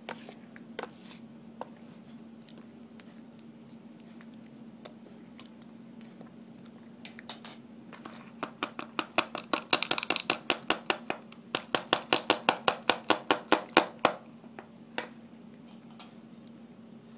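A metal spoon scraping packed cornstarch in a plastic tub in quick, even strokes, about six a second, for some six seconds in the middle, with a few scattered clicks before and after. A steady low hum runs underneath.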